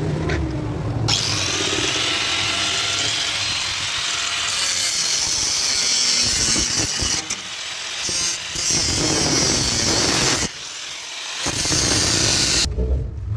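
Handheld power tool running under load. It eases off briefly about ten and a half seconds in, picks up again, and stops near the end.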